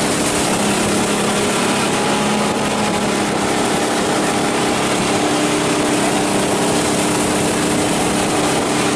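Ski boat's inboard engine running steadily under way at an even pitch, over a constant hiss.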